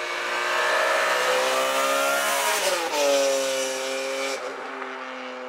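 BMW E46 M3's naturally aspirated 3.2-litre S54 inline-six, fitted with a Borla exhaust, accelerating hard. The pitch climbs, drops sharply with an upshift a little under three seconds in, climbs again, then the throttle lifts about four and a half seconds in.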